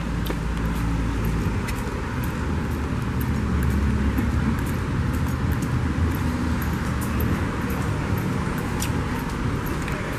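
Steady outdoor road-traffic noise with a low rumble, with a few faint light ticks from sandal footsteps on pavement.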